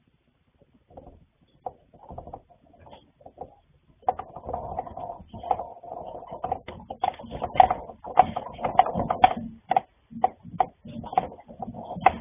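Objects rattling and clattering irregularly indoors, shaken by the earthquake: a few faint rattles at first, then from about four seconds in a dense, continuous rattle of small knocks.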